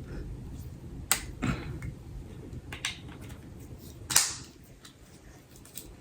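Handling noise: a few sharp clicks and taps of small objects being handled, the loudest about four seconds in.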